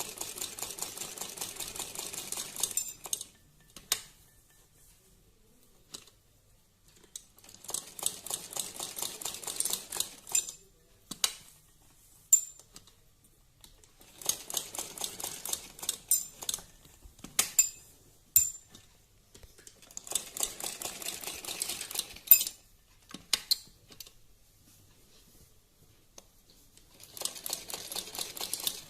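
Sewing machine stitching in short runs of two to three seconds, five times, the needle going up and down rapidly, as a design is sewn onto a garment neckline. Between runs the fabric is turned, with a few single clicks and taps.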